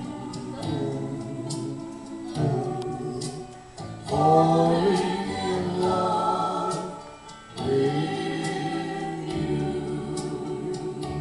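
A man singing a song into a microphone, amplified through a PA speaker over a backing track with choir-like backing vocals, in phrases with short breaks about 4 and 7.5 seconds in.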